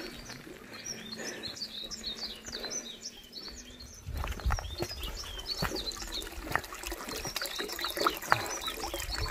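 Small birds chirping and singing in many short quick calls throughout. From about four seconds in, water trickles from a stone spout into a basin, with a low rumble and a few knocks.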